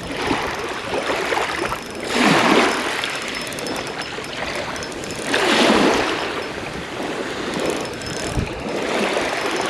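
Small waves breaking and washing over a shingle beach, with two louder surges about two and five and a half seconds in.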